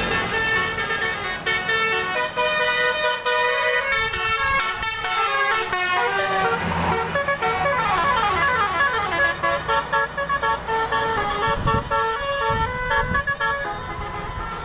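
Telolet bus horn, a multi-tone musical air horn, playing a quick melody of short notes in several tones at once.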